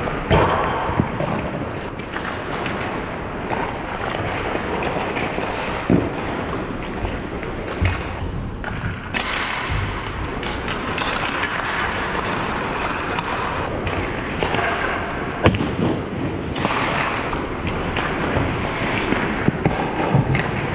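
Ice hockey play: skate blades scraping and carving on the ice throughout, with occasional sharp clacks and thuds of sticks and puck, the loudest a few seconds before the middle and again near two-thirds through.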